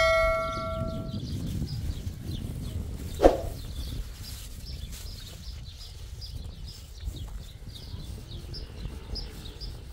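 A metal clang that rings on and fades over about the first second, then a single short call or knock that dips in pitch about three seconds in. Under it runs a steady low rumble, with faint high chirps repeating about twice a second.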